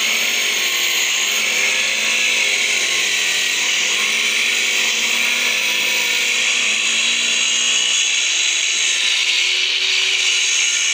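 Large two-handed angle grinder running steadily, its cutting disc grinding through a white stone slab. The grinding is loud and high-pitched, and the motor's tone wavers slightly under load.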